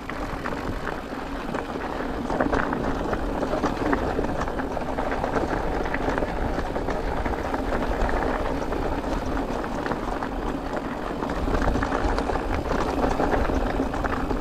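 Mountain bike rolling over a loose, rocky dirt trail: a steady crunch of tyres on gravel, with many small rattles and knocks from stones and the bike, over a low wind rumble on the microphone.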